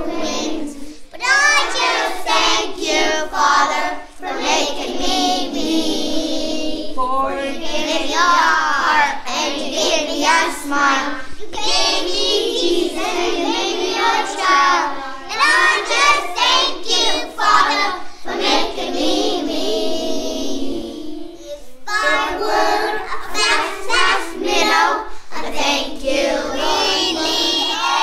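Young children singing a song together in sung phrases with short breaks between them.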